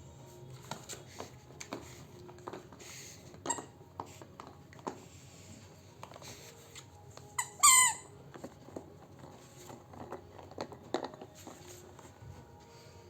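A squeaky dog toy squeaks once, loud and wavering, about seven and a half seconds in, as a puppy plays with it. Scattered light taps and clicks run around it.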